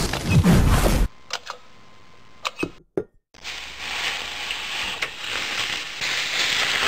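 A loud whooshing rush cuts off abruptly about a second in, followed by a few sharp clicks. Then comes a steady scratching of a pencil drawing on a sheet of paper.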